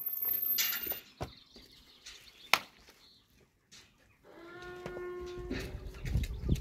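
A single sharp knock, then about four and a half seconds in one held call from a farm animal, about a second long at a steady pitch. A low rumbling noise follows near the end.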